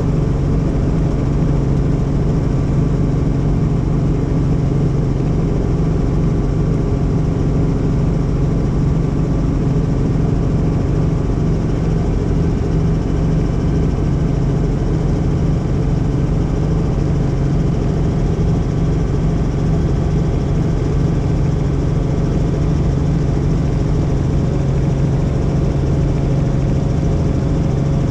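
Helicopter in flight, its engine and rotor giving a loud, steady drone that does not change.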